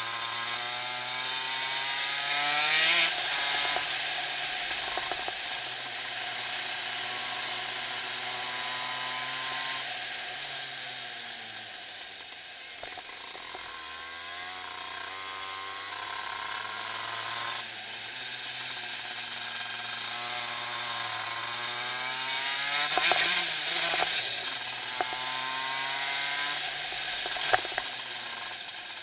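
Shifter kart engine heard on board, revving up and dropping back as the kart accelerates out of corners and brakes into them. The pitch climbs to a peak about three seconds in and again near the twenty-third second, falling away in between.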